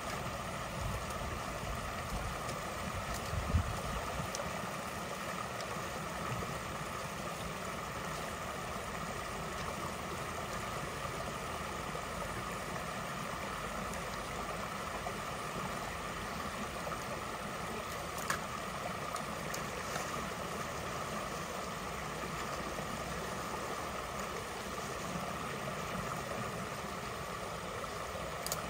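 Creek water running steadily through a culvert where a beaver dam is being cleared. A low thump comes about three seconds in and a faint click later on.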